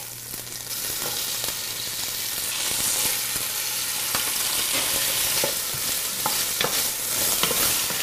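Diced carrots, celery and onions sizzling in hot olive oil in a Dutch oven, the sizzle building over the first few seconds as the vegetables go in, then holding steady. A few light knocks come in the later seconds as stirring begins.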